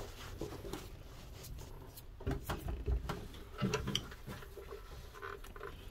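Handling noise: soft knocks, clicks and rubbing as the phone and a hand move about the breaker panel, loudest in two clusters about two and a half and four seconds in.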